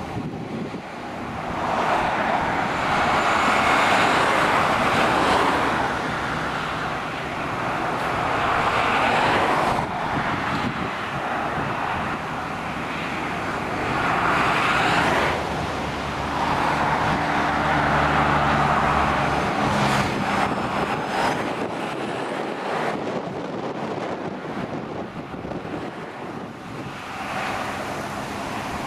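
Motorway traffic passing below: trucks and cars go by one after another, the tyre noise swelling and fading several times. A truck's low engine drone comes through around the middle.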